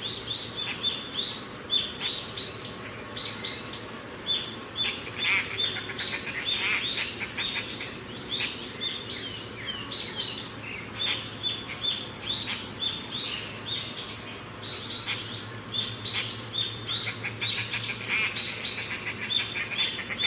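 Small birds chirping continuously, with many short, high calls overlapping and repeating several times a second.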